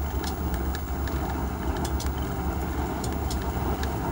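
Steady low rumble of the tug's diesel engines pushing a loaded tank barge, with a few faint clicks.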